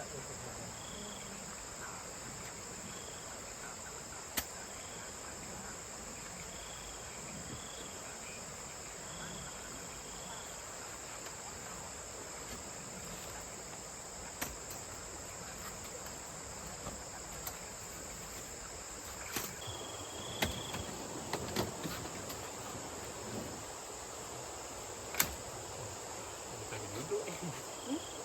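Night insect chorus: a steady high-pitched drone with short chirps repeating about once a second, and a few sharp clicks or knocks scattered throughout.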